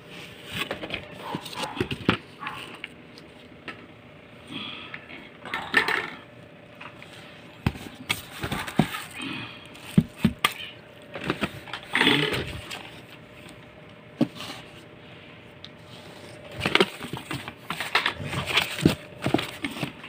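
Cardboard box and packing material being handled: scattered rustles, scrapes and sharp knocks of cardboard and plastic as parts are moved about inside the box.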